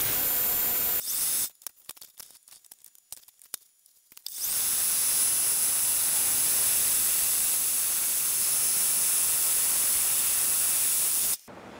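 Metal lathe cutting stainless steel, a facing cut across a thick disc: a steady hiss of cutting with a thin high whine. The hiss runs about a second, gives way to a few seconds of scattered clicks, then resumes steadily and cuts off suddenly near the end.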